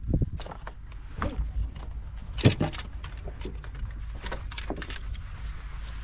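Irregular knocks and rattles over a low steady rumble, from the airframe and cockpit of an SZD-30 Pirat glider. One sharper knock comes about halfway through.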